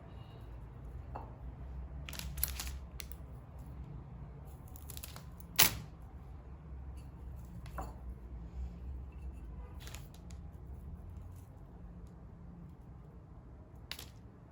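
Scattered light clicks and knocks of things being handled, the sharpest about five and a half seconds in, over a low steady hum.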